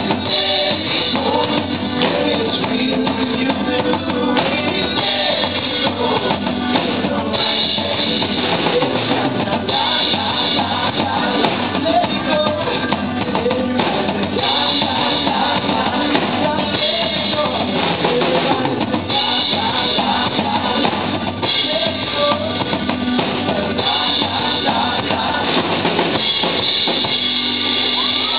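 Live band playing a pop-rock song, with a full drum kit and bass drum keeping a steady beat under the other instruments.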